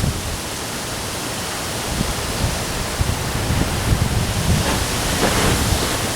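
Heavy rain and strong gusting wind in a storm: a steady loud hiss, with gusts buffeting the microphone in irregular low rumbles, more of them in the second half.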